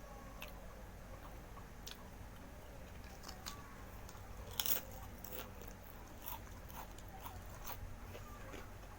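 Close-miked mukbang eating: biting and chewing crunchy food, with scattered small crunches and one sharp, loud crunch about four and a half seconds in.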